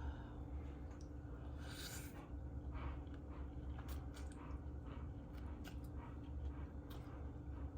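A person chewing food close to the microphone, with small wet clicks and crunches, and a sharp breath through the nose about two seconds in, over a steady low hum.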